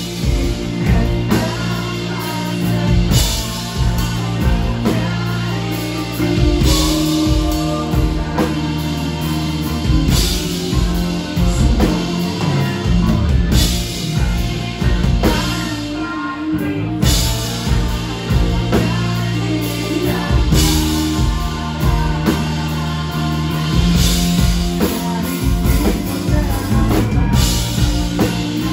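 Live pop-rock band playing a song: drum kit, electric bass, acoustic and electric guitars and keyboard, with cymbal crashes every few seconds.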